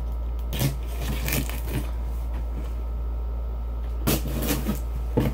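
Cardboard shipping box being worked open by hand, packing tape being cut and pulled off it, heard as several short scrapes and rustles, more of them near the end.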